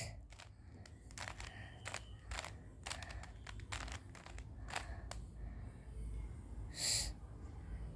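Plastic Rubik's cube being turned through a sequence of moves: quick, irregular clicks of the layers snapping round, with a louder click about seven seconds in.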